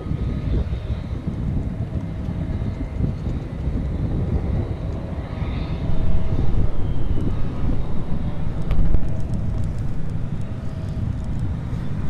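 Contact-microphone pickup from a hand-held "Hurdy-Gurdy Reel" kite-line instrument: a dense low rumble with faint steady hum tones, getting louder about six seconds in, with a sharp click near nine seconds.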